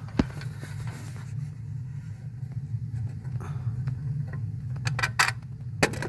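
Metal clicks and rattles from a new aquastat and its sensor being fitted into a boiler's brass immersion well by hand: one click just after the start and a quick cluster near the end, over a steady low hum.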